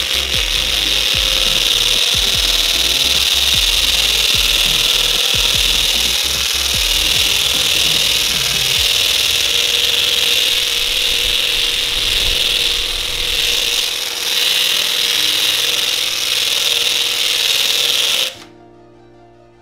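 Cordless drill spinning a homemade sandpaper flap wheel against wood: a steady high whine mixed with the rasp of abrasive sanding the grain. It stops suddenly near the end.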